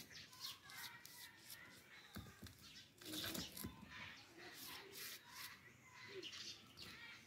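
Faint, scratchy strokes of a paintbrush rubbing against a ribbed terracotta flower pot, in a run of short strokes.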